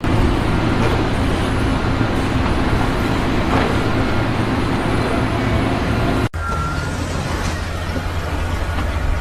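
A heavy engine running steadily under a haze of mechanical noise. It breaks off abruptly about six seconds in, and a similar engine sound picks up again at once.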